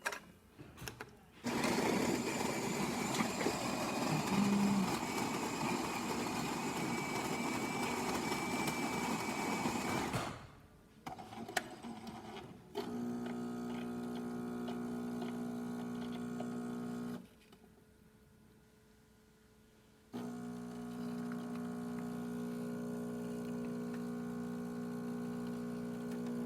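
Jura Impressa J5 super-automatic espresso machine making a shot: the bean grinder runs for about nine seconds and the brew unit clicks into place. The pump then buzzes for about four seconds, stops for about three seconds (pre-infusion) and buzzes steadily again while the coffee runs.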